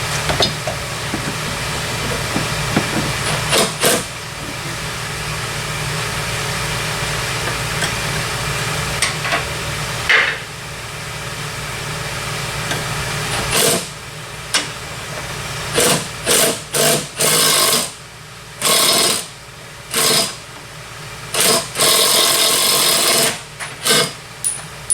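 Pneumatic impact wrench hammering in a string of short bursts through the second half, working at a seized sway bar end link nut. Before that a steady noisy hum runs with a few sharp knocks.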